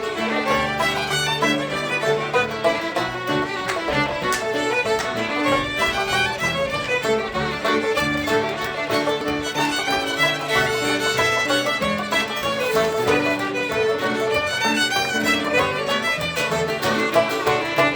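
Celtic folk tune led by a fiddle playing quick melodic notes over sustained lower tones.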